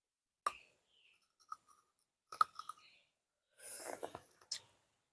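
Close-up eating noises from fruit being bitten and chewed: a few sharp scattered clicks and a short rustle about four seconds in.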